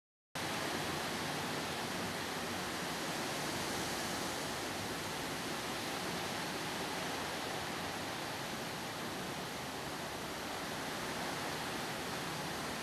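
Steady, even background hiss with no distinct sounds in it, starting a fraction of a second in.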